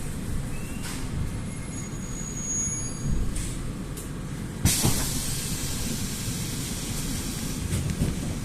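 Inside a Rusich metro car: a steady low rumble as the train comes into the station. About halfway through there is a sudden loud hiss that fades away.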